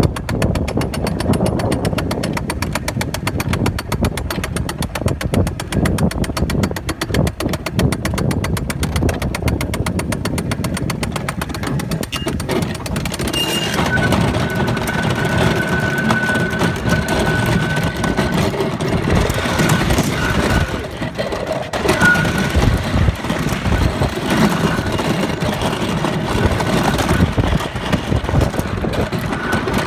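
A homemade wooden roller coaster car is hauled up its chain lift with a fast, steady clicking. About thirteen seconds in, the clicking gives way to the car rolling over the wooden track with a rumble and, now and then, a high wheel squeal.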